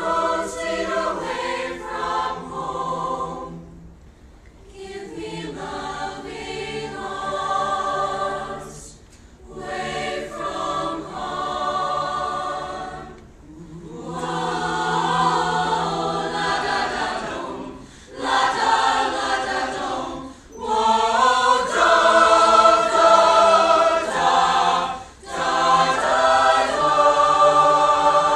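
Mixed choir of teenage voices singing together in phrases, breaking briefly between them. The singing grows louder about two-thirds of the way through.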